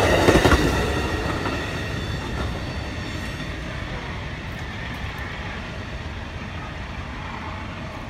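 Amtrak passenger train passing close, with the rumble and rattle of its cars on the track, then fading steadily as it runs away into the distance.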